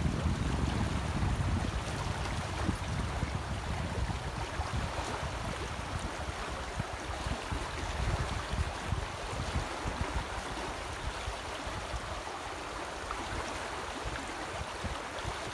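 Swollen woodland stream rushing steadily past a fallen log, a continuous wash of flowing water.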